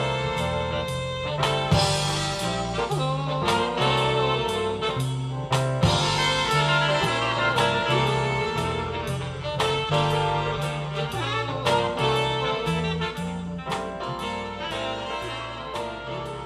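Jazz-style music played through NHT SuperOne bookshelf speakers driven by a bridged Marantz 4400 receiver and heard through the room: a bass line stepping from note to note under a steady beat and higher instruments. It fades out over the last few seconds.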